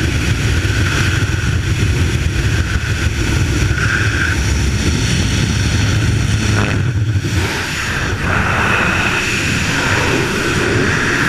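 Heavy wind rush on a helmet camera's microphone over the low drone of a jump plane's engine and propeller, with the skydiver outside the aircraft. About seven seconds in, the engine drone drops away, leaving only the rushing wind of freefall.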